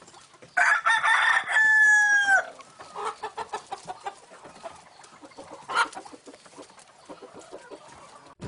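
A rooster crowing once for about two seconds, its held last note falling away at the end. Quieter scattered clucks and clicks follow, with one brief louder call near the middle.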